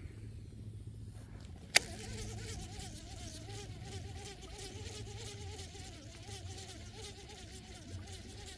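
Baitcasting reel: a sharp click about two seconds in as the handle is turned, then a steady whirring from the reel being cranked, wavering up and down in pitch, as the lure is reeled in.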